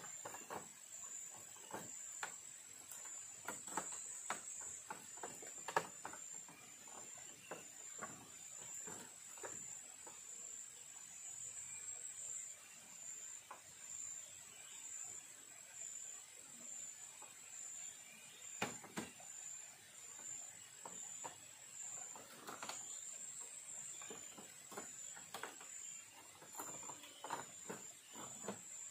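Insects trilling steadily at a high pitch, with scattered light knocks and clicks at irregular moments, the sharpest about six seconds in.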